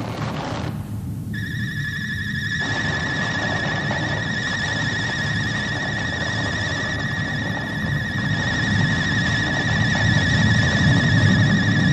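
Animated-film soundtrack: a low volcanic rumble runs under a high, slightly wavering tone. The tone comes in about a second in, holds steady for about ten seconds, and cuts off just after the end.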